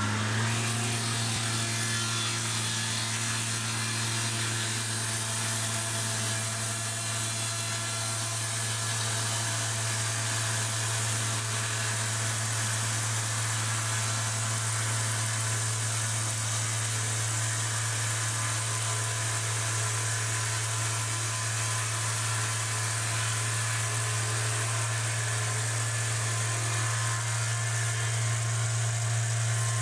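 Diesel-driven circular sawmill (ETECH1200D, four-cylinder 50 hp diesel) running at a steady speed while its circular blade cuts lengthwise through an oak log: a constant low drone with the even rushing noise of the cut above it.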